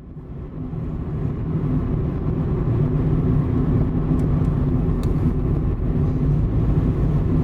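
Steady low rumble of a running motor vehicle, fading in over the first second.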